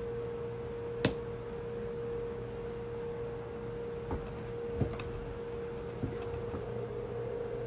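A steady single-pitched whine with a low hum beneath it, and a few faint clicks, one about a second in and others between four and six seconds in.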